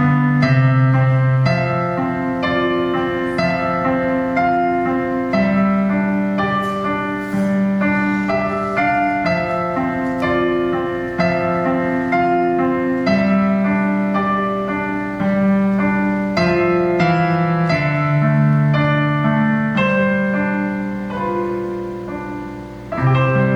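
Piano playing a piece of sustained chords under a melody, notes struck one after another and left to ring. Near the end the sound fades briefly, then a new chord is struck.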